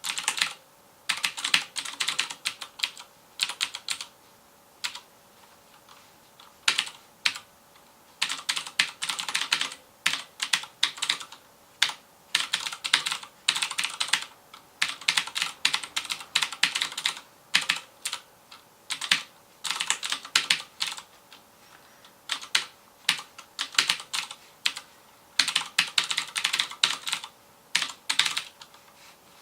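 Typing on a FILCO Majestouch Convertible 2 keyboard with clicky Cherry MX Blue switches: fast runs of keystrokes broken by short pauses.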